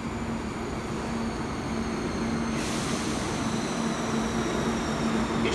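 Kintetsu limited express train pulling into an underground station platform, its running noise growing steadily louder over a steady low hum. About halfway in a hiss comes in, with faint high whines slowly falling in pitch as the train slows.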